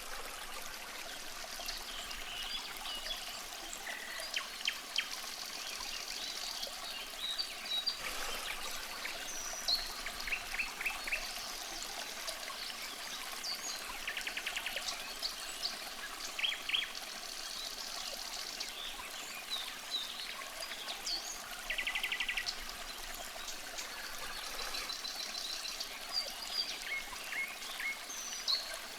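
A stream trickling steadily, with birds calling and singing over it throughout: scattered chirps, several short rapid trills and buzzy phrases.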